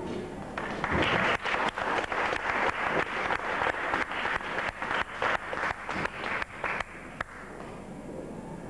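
Small audience applauding after a song, starting about a second in and thinning out to a few last claps near the end.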